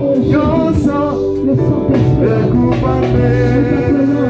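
Church worship music: a band playing with voices singing over it.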